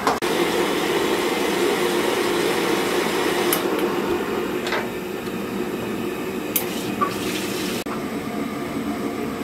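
Steady rushing noise with a few light clicks and knocks.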